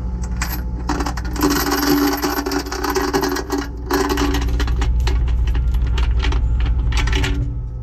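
Steel tow chains rattling and clinking against the rear of a tow truck as they are handled, over the truck's engine running steadily. The clinking starts about a second in and stops just before the end.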